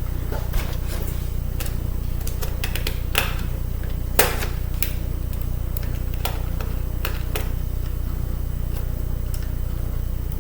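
Scattered light clicks and taps of tiny screws and small metal parts of a laptop CD drive being handled and set down, one louder tap about four seconds in, over a steady low hum.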